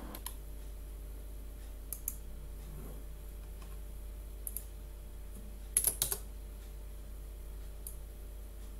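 A few scattered computer keyboard and mouse clicks, with a quick cluster of three about six seconds in, over a faint steady low hum.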